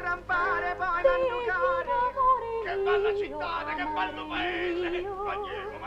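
Soundtrack music: a wordless singing voice carries a warbling melody with heavy vibrato, moving up and down in steps.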